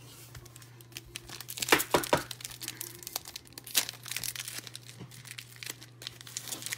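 The wrapper of a football card pack being torn open and crinkled in a run of sharp crackles, loudest about two seconds in and again near four seconds.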